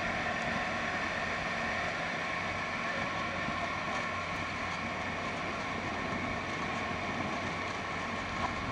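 Outrigger bangka boat's engine running at a steady pitch while the boat is under way, an even drone over the rush of water past the hull.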